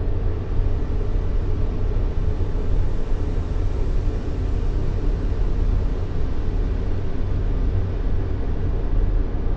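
Continuous white noise for soothing a baby to sleep: a deep, steady hiss weighted heavily toward the bass and thinning out in the treble, unchanging throughout.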